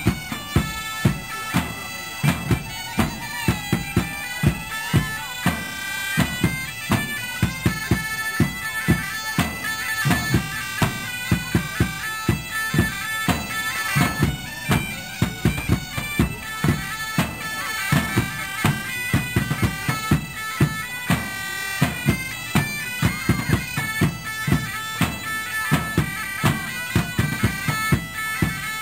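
Live folk music: bagpipes play a melody over their steady drone, driven by a regular, hard drum beat.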